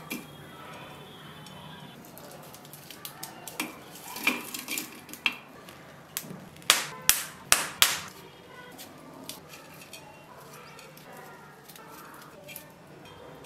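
Handling clatter: scattered clicks and knocks, with a quick run of four louder knocks a little past the middle, as small items such as shallots and charcoal lumps are set down in a clay bowl and on the counter. A faint steady hum lies underneath.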